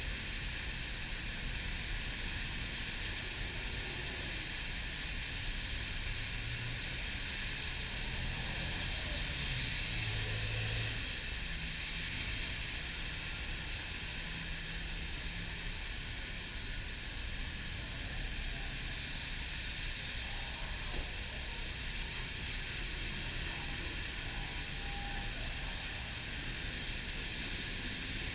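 City bus in the rain, heard from on board: a steady low engine drone under an even hiss of rain and wet road noise.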